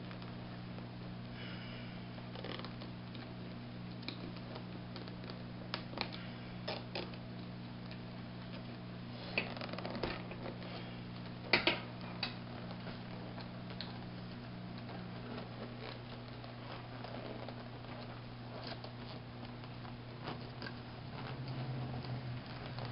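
Scattered plastic clicks and rustles as a headrest monitor shroud is worked into a headrest and its zip ties are pulled tight, with a few sharper clicks in the middle. A steady low hum runs underneath.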